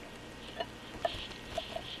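A few faint light clicks of a small steel pin punch and a ball oiler being handled and set in an oiler hole of a cast-iron lathe apron, about four ticks spread over two seconds.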